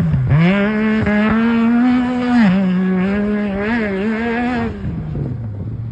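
Yamaha YXZ1000R's three-cylinder engine, fitted with a Weller Racing exhaust, running hard at high revs. Its pitch dips and climbs back a few times with the throttle, then drops to a lower, steady note about five seconds in.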